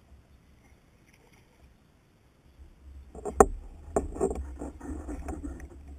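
Quiet at first, then a sharp knock a little past halfway, followed by a run of irregular knocks and rattles over a low rumble: gear and hull handling on a fishing kayak while a hooked fish is played at the surface.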